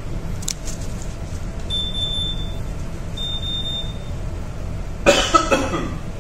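Two steady high-pitched beeps of about a second each from the ECDIS workstation's alarm, sounding for its power-failure and low-battery alerts, over a steady low hum. A person coughs near the end, the loudest sound.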